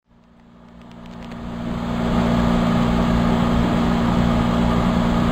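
Inside a moving passenger train coach: a steady rumble of the wheels and carriage with a constant low hum over it, fading in over the first two seconds and then holding even.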